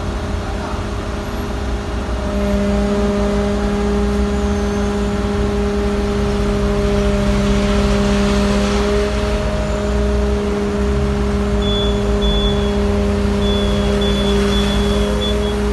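Magirus fire-truck turntable ladder's engine and hydraulic drive running as the ladder moves the basket down. A steady low rumble rises about two seconds in into a strong, even hum that holds. A faint high whistle comes and goes near the end.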